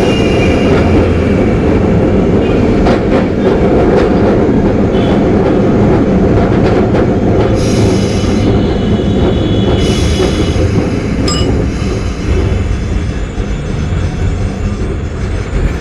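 Kolkata electric tram running at speed, heard from inside the car: a loud, steady rumble of wheels and running gear, with clicks over the rail joints and the wheels squealing on the rails now and then.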